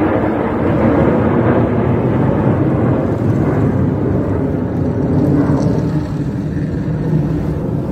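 Jet engines of a formation of Red Arrows BAE Hawk jets flying past, a loud steady rumble that eases slightly near the end.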